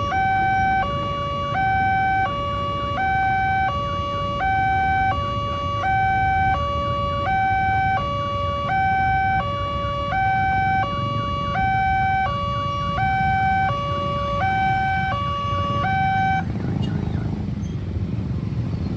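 Railway level-crossing barrier alarm sounding a two-tone electronic hi-lo siren that switches pitch about every three-quarters of a second, over a low rumble. The alarm stops about sixteen seconds in, and the rumble then grows louder.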